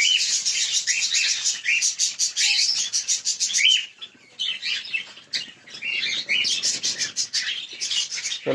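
A flock of cockatiels chirping and calling, with many rapid short chirps and repeated downward-sweeping calls. The calling drops off briefly about four seconds in, then picks up again.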